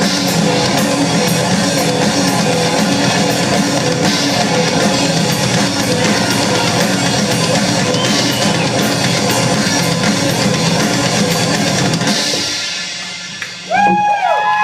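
Live rock band playing a loud instrumental intro on drum kit, electric guitar and bass, which stops about 13 seconds in. Right after, the audience bursts into cheers and shouts.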